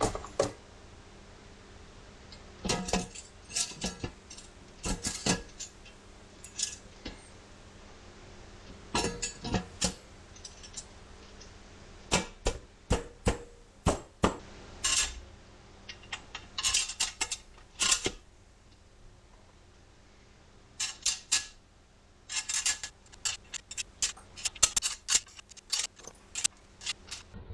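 Small metal wheel-assembly bolts clinking and rattling as they are handled and set into the bolt holes of a three-piece wheel's centre and lip. The clicks come in short, irregular clusters with pauses between them.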